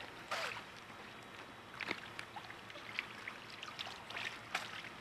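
Small scattered clicks and rustles of hands fastening a volleyball net's cord and clip to a plastic pool pole, over a faint wash of pool water.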